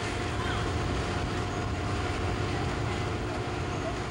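Steady low rumble of outdoor amusement-park noise, with a faint steady hum above it and no distinct events.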